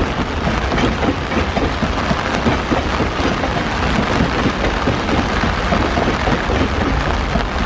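Loaded container freight wagons rolling steadily past close by in heavy rain: a continuous low rumble with rain falling over it.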